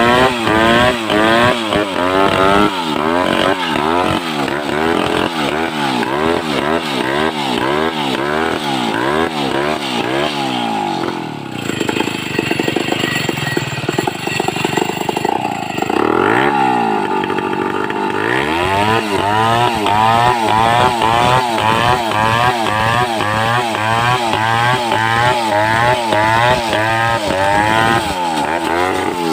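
Home-built Stihl 070-type large two-stroke chainsaw running hard while ripping a log into a beam. Its engine pitch rises and falls about one and a half times a second as it works. Midway the revs sit lower and steadier for several seconds, then the quick rise and fall comes back, and the pitch drops near the end.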